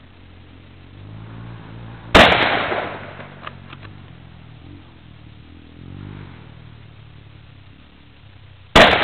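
Two shots from an M91/30 Mosin-Nagant bolt-action rifle (7.62×54R), about six and a half seconds apart: one about two seconds in and one near the end. Each is a sharp report followed by a short echo that dies away.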